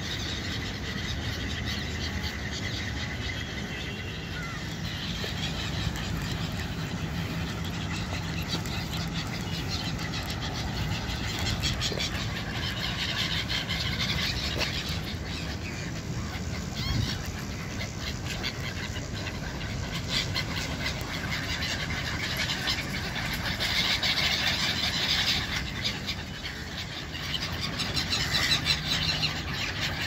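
A flock of gulls calling, busiest in two stretches, about halfway through and again toward the end, over a steady low rumble of city traffic.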